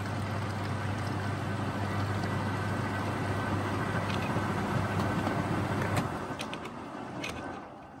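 Beko WMB81341LS washing machine with water rushing through it over a steady low mains hum. The hum cuts off suddenly about six seconds in, and the water noise fades to a dribble.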